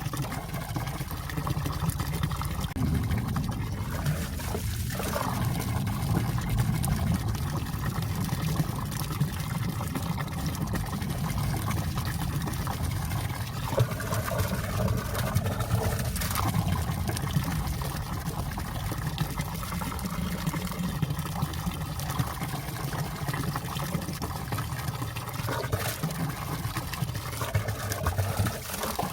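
Clear valley stream running and trickling among ice, a steady, unbroken water sound with a deep low rumble underneath.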